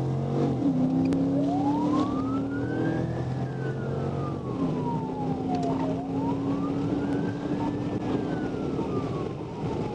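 Police car siren on a slow wail, rising and falling about every four and a half seconds, over a steady hum of engine and road noise.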